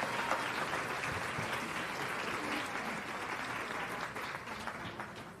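Audience applause, a steady patter of many hands clapping that dies away near the end.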